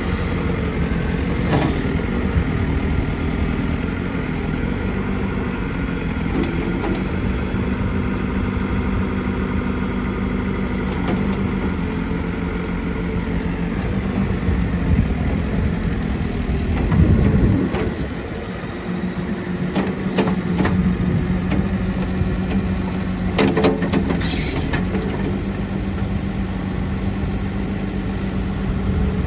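New Holland B95 backhoe loader's diesel engine running steadily at idle. Its note swells and drops briefly a little past halfway, and a few sharp knocks or clanks come later.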